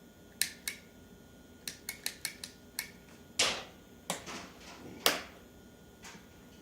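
Electric ATV foot pedal being pressed and released over and over, giving a dozen sharp plastic clicks and knocks, some in quick runs, with no motor sound following. The pedal switch clicks but nothing runs, which the owner puts down to faulty controller electronics.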